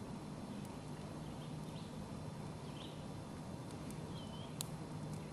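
Small twig fire crackling faintly, with a few sharp snaps, the loudest about four and a half seconds in. A few short bird chirps sound in the background.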